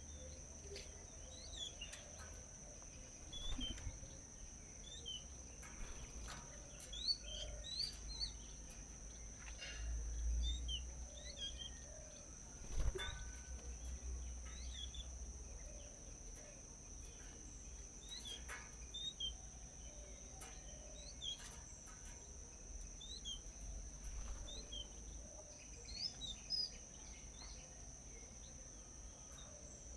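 Small birds chirping: many short, quick chirps throughout, over a steady high insect drone, with scattered sharp clicks and a low rumble that swells in the middle.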